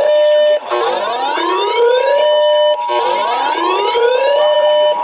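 Emergency Alert System two-tone attention signal, a steady dual tone, sounding together with a siren-like alert wail. The wail rises in pitch for about a second and a half, holds briefly and cuts off, repeating about every two seconds. It marks the start of a severe thunderstorm warning broadcast.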